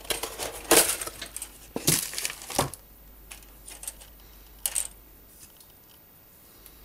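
Crinkling and rustling of the clear plastic bags around a plastic model kit's sprues as the cardboard box is opened and the parts handled. A run of sharp rustles comes in the first three seconds, with one more near five seconds in.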